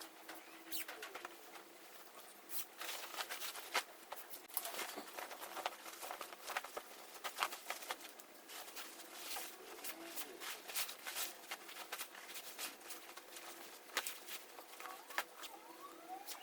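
A dove cooing in the background over scattered clicks and rustling of handling.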